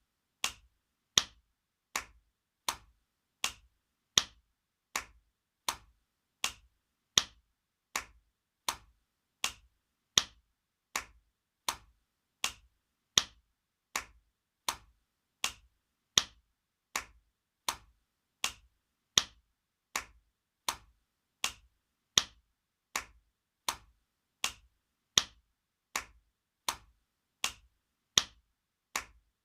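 Spanking sound effect: sharp slaps repeating evenly, about one smack every three-quarters of a second, some noticeably louder than others.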